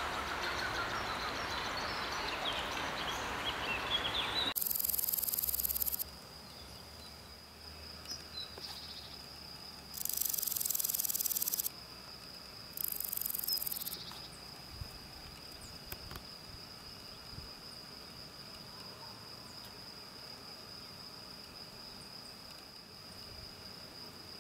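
Grasshopper stridulating in three high, hissing buzzes of one to two seconds each, the first about four seconds in and the other two close together later. A steady thin high tone runs beneath them, and the opening seconds are taken up by a louder, fuller wash of outdoor sound with chirps in it.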